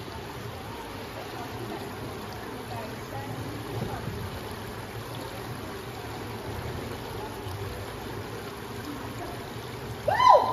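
Indoor swimming-pool hall ambience: a steady wash of water and air noise with faint murmuring voices. Near the end, loud high-pitched whooping cheers break out.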